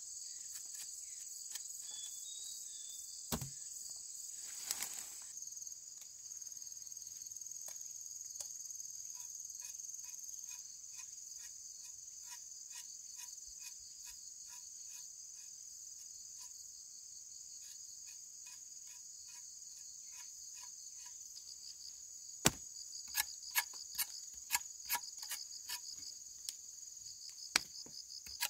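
Insects shrilling steadily in a high, continuous drone. Light taps come at a steady pace of about two a second through the middle, and several sharp knocks follow near the end.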